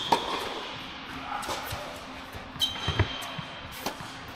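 Tennis rally on an indoor hard court: sharp knocks of racket strikes and ball bounces, with sneakers squeaking on the court surface.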